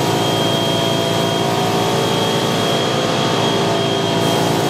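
Compressed-air spray gun hissing steadily while the air compressor feeding it runs underneath with a steady hum of several tones. There is one strong high whistle, and nothing changes throughout.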